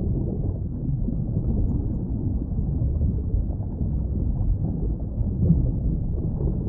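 Steady, muffled low rumble of underwater ambience, with small irregular flutters and no distinct calls.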